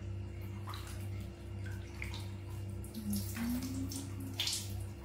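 Small splashes and drips of water as a hand scoops water from a plastic dipper and wets a baby monkey's fur, a few short splashes spread through, over a steady low hum.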